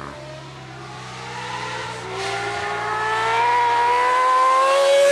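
Honda CBX 1000 inline-six motorcycle accelerating hard toward the listener, its engine note rising steadily in pitch and growing louder as it approaches. The engine is fitted with a Guyonnet electronic ignition.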